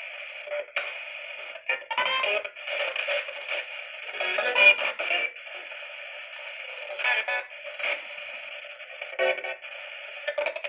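Coultous Box ITC device sounding through its small speaker: a steady thin, tinny hiss broken every second or two by short, choppy snatches of radio voices and music.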